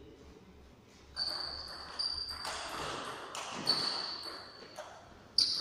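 Table tennis balls clicking off tables and bats, a few sharp ringing ticks at uneven gaps from about a second in, echoing in a large sports hall.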